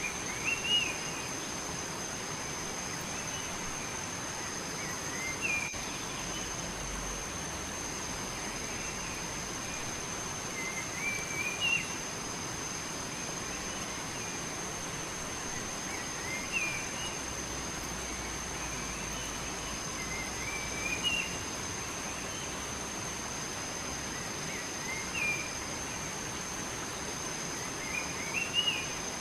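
A bird repeats a short, rising chirped song phrase about every four to five seconds, seven times. Underneath runs a steady outdoor hiss and a continuous thin high whine like an insect's.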